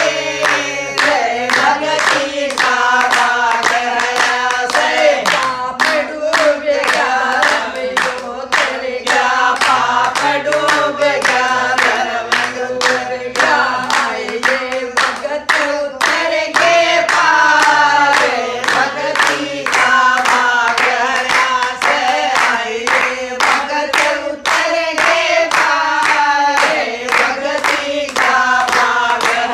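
A group of women singing a Hindu devotional bhajan in unison, clapping their hands together in a steady rhythm.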